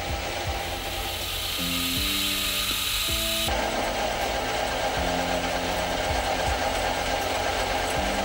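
A metal lathe with a parting tool cutting off a threaded metal rod as it turns, a steady cutting noise that drops abruptly lower in pitch and grows stronger about three and a half seconds in. Soft background music underneath.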